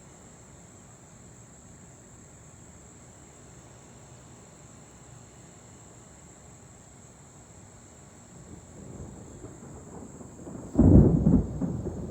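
Close thunder: a low rumble builds from about eight seconds in, then a sharp, loud crack near the end, followed by rolling rumbles. This is the sound of a nearby lightning strike.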